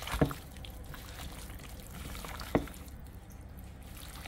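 Wet squelching of raw chicken wings being kneaded by a gloved hand in an oily barbecue-sauce marinade, with two sharp wet smacks, one just after the start and one about two and a half seconds in.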